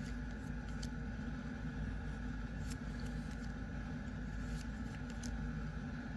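Steady low background hum with a few faint, light clicks and ticks scattered through it, as of trading cards being handled.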